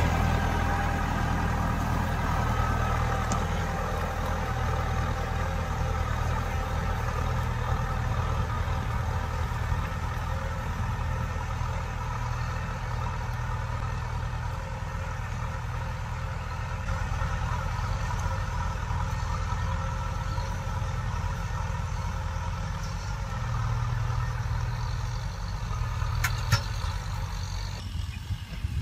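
Kubota M6040 tractor's diesel engine running steadily under load as it pulls a disc plow through dry, stony soil. A single sharp click sounds near the end.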